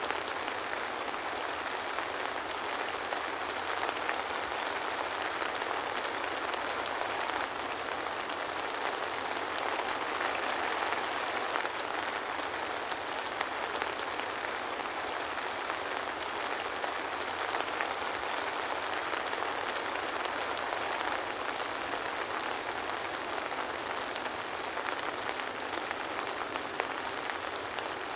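Steady soft rain falling, an even patter with no thunder.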